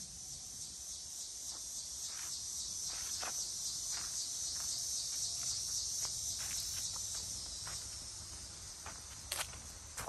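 Dense, steady, high-pitched insect chorus that swells and then eases off slightly, with scattered footsteps; a couple of louder steps come near the end.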